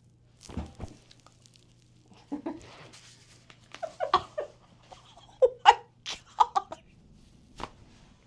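A chiropractic back adjustment: a scattered series of short, sharp pops and cracks, mixed with a person's brief laughing and vocal exclamations.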